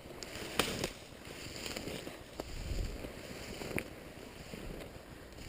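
Snowshoe footsteps in snow, uneven soft thuds and swishes, with a few sharp clicks of twigs or branches snapping underfoot.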